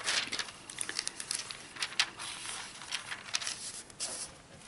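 Thin Bible pages being turned and handled, a run of short, crisp paper rustles and flicks while a verse is looked up.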